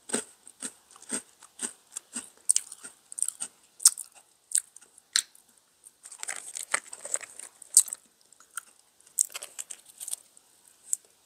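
Close-miked chewing of a small vanilla DunkAroos cookie coated in chocolate frosting: soft crunches and wet mouth clicks, about two a second at first, then more irregular, with a denser stretch of smacking just past the middle.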